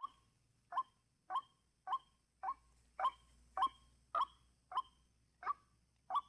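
White-breasted waterhen calling: a short 'kwak' note repeated steadily, about one and a half a second.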